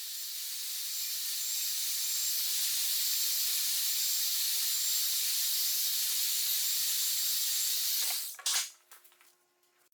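A steady, loud hiss that stops abruptly about eight seconds in, with a brief flare of sound just after it stops.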